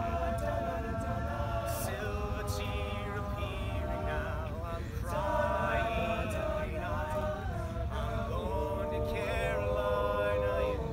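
All-male a cappella group singing in close harmony, the voices holding sustained chords and sliding together from one chord to the next.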